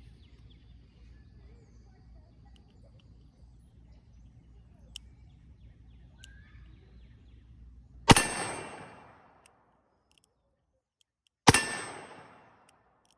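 Two shots from a Taurus Tracker .357 revolver, about three and a half seconds apart, each a sharp crack followed by a long echoing tail.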